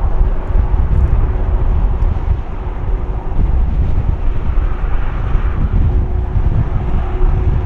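Boeing 747-400 jet engines running at low taxi power as the airliner turns onto the runway: a steady low rumble and roar with a constant hum.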